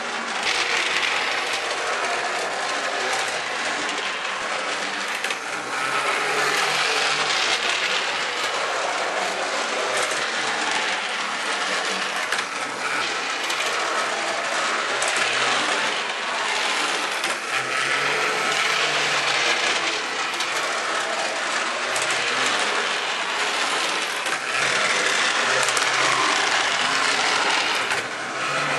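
Home-built On30 model tram running along the layout's track, its small electric motor whirring and its wheels rattling on the rails, growing louder and softer several times as it moves nearer and farther.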